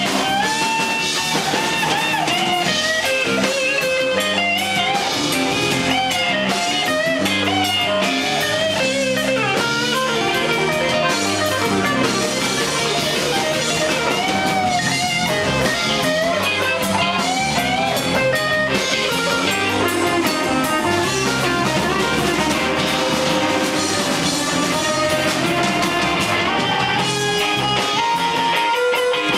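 Live blues band playing: hollow-body electric guitar with bending notes, harmonica played into a vocal microphone, electric bass and drum kit, continuous and loud.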